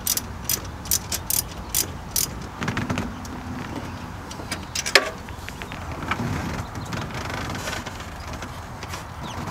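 Hand work on spark plug wires in a Chevy 6.0L V8's engine bay: a quick run of sharp clicks in the first two seconds, then rustling and scraping against the plastic wire loom, with one loud sharp click about five seconds in.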